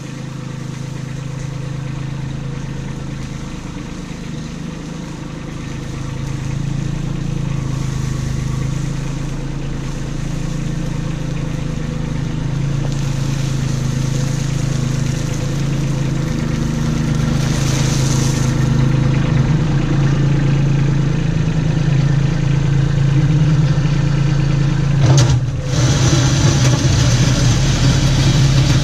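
Kubota B2601 compact tractor's three-cylinder diesel engine running steadily and growing louder as it draws near, with crushed gravel spilling from the tipped front-end loader bucket. A single clunk about 25 seconds in.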